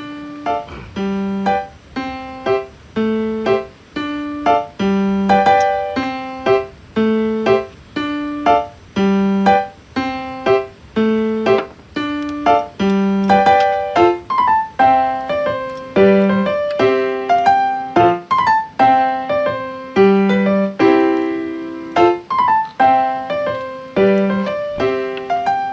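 Background music: a piano playing a steady, rhythmic melody, about two notes a second over a repeating low bass note.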